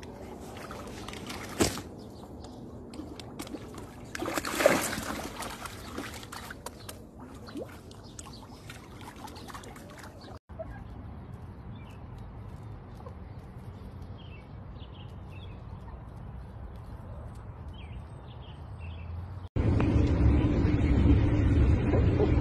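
Water lapping and sloshing against rocks at a lake edge, with a couple of sharp splashes. This gives way to a quieter stretch with a few faint short calls. Near the end comes a much louder steady drone of a car interior.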